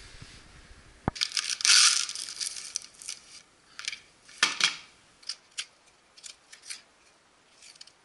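Clear plastic film being cut with a utility knife and peeled off a cast resin lampshade: a crackling tear lasting about two seconds, a couple of sharper knocks, then a string of short, light clicks and taps.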